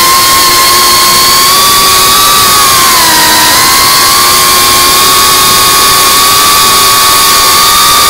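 FPV quadcopter's electric motors whining with a hiss of rushing air. The whine dips in pitch about three seconds in, then rises again as the throttle comes back up.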